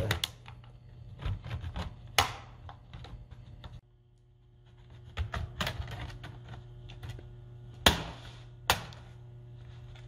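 Plastic snap clips along the seam of an HP 15 laptop's case clicking and cracking loose as a plastic spudger pries the top cover away from the base: a run of sharp clicks, with two louder snaps close together near the end.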